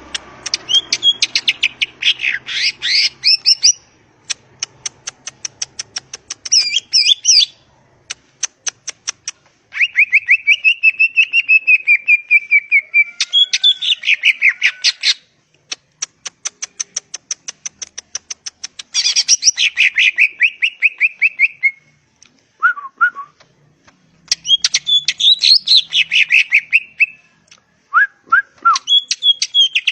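Green leafbird (cucak ijo) singing loudly in long, varied phrases: fast warbled and whistled runs alternating with rapid trains of sharp ticks, broken by brief pauses.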